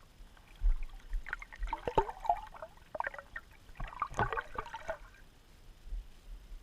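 Water gurgling and splashing in two bouts of short bubbly sounds, the first about a second in and the second about four seconds in, with low bumps underneath.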